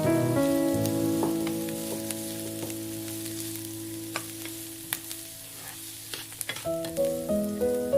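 Hot oil sizzling steadily with scattered sharp crackles as bajji fritters deep-fry, under background music of sustained notes that change a few times.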